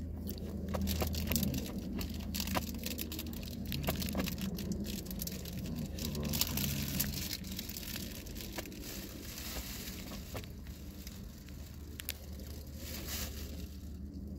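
A cat biting and clawing at a ball of yarn on a blanket: scratchy rustling and crackling with many small clicks, over a steady low hum.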